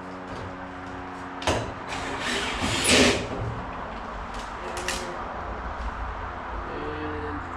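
Knocks, a scraping clatter and a few sharp clicks of sheet-metal dryer panels and screws being handled during reassembly, over a steady hum.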